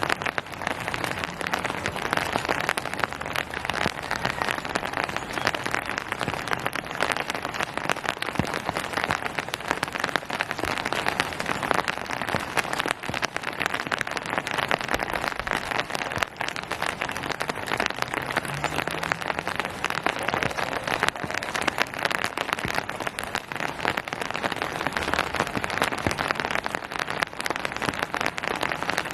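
Steady rain falling, a dense pattering of drops on surfaces.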